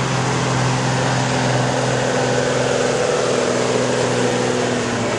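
Turbo-diesel engine of a pulling truck at full throttle under heavy load, dragging a weight-transfer sled and belching black smoke; a loud, steady low engine note that holds its pitch.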